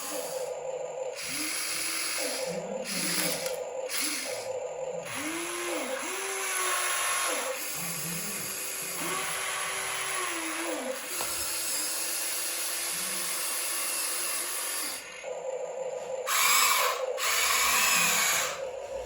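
Small electric motors and gearboxes of radio-controlled models whining in short runs, the pitch rising and falling as they speed up and slow down, with two louder, hissier bursts near the end.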